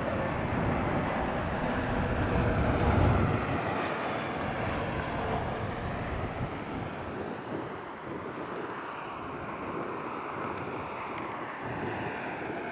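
Jet airliner engines passing, a broad rumbling roar loudest about three seconds in, then easing off to a steadier, more distant rumble with faint gliding whine.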